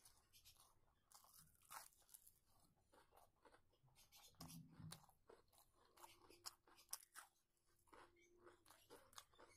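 Close-miked chewing: irregular crunches and wet mouth clicks as a person eats rice and a fried fritter by hand.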